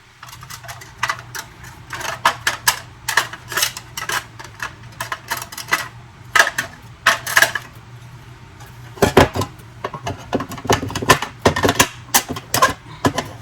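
Markers clicking and clattering against each other as they are handled and dropped one after another into a container, a rapid, irregular run of small knocks.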